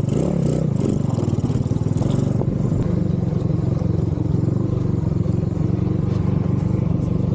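TVS Apache RTR motorcycle's single-cylinder engine running steadily under way, its exhaust note even and unbroken. A brief scraping rustle sounds over it in the first couple of seconds.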